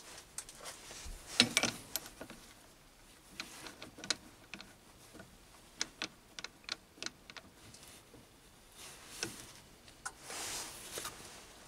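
Scattered small metallic clicks and taps as a brass workpiece is handled and fitted into the jaws of a stopped mini lathe's chuck. The loudest knock comes about a second and a half in, and there is a soft brushing hiss near the end.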